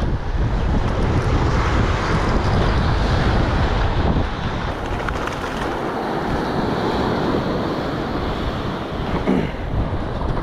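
Ocean surf washing up onto a sand beach, with wind buffeting the microphone, heaviest in the first few seconds.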